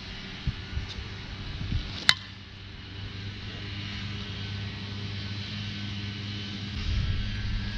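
A 2018 Worth EST XL slowpitch softball bat striking a pitched softball: one sharp, ringing crack about two seconds in.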